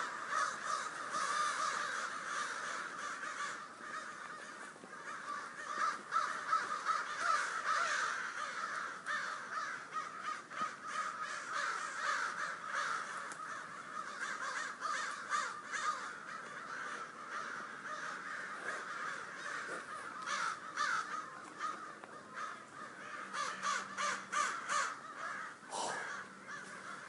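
Many crows cawing at once, their calls overlapping in a continuous chorus.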